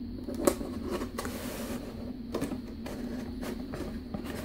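Cardboard packaging being handled as an inner cardboard insert is slid out of its box: a sharp knock about half a second in, a short scraping slide of cardboard on cardboard around a second and a half in, then a few lighter taps. A steady low hum runs underneath.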